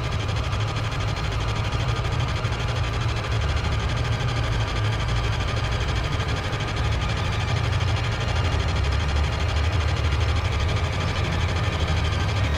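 Loud, steady low-pitched rumbling drone with faint held tones above it, from a film's electronic sound design.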